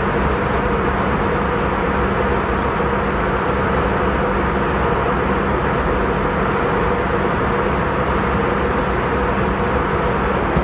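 Airliner cabin noise in flight: a steady rushing noise with a low, even hum underneath.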